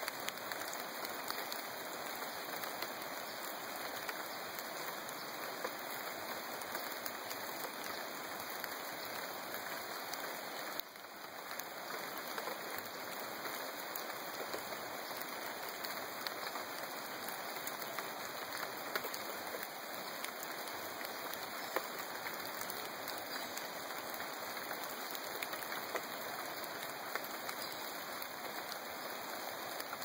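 Steady rain falling on rainforest foliage: an even hiss with many scattered drop ticks.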